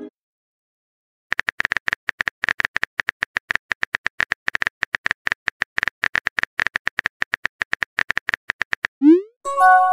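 Smartphone keyboard typing clicks: a fast, steady run of short ticks as a message is typed in a texting app. Near the end a rising pop and a short chime sound as the message is sent.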